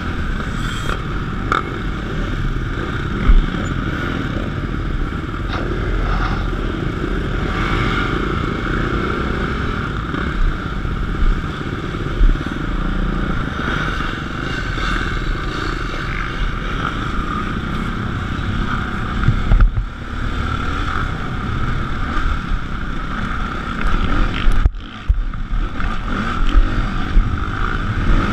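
Dirt bike engine running, heard from a camera mounted on the bike, as the bike pulls away and rides along a dirt course. The engine note runs continuously, broken by a few sharp knocks and clatter from the bike and camera mount, and it briefly drops away twice near the end.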